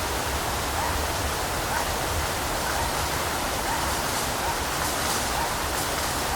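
Steady hiss of a bush field recording boosted 400% in volume, with a few faint short rising chirps about once a second.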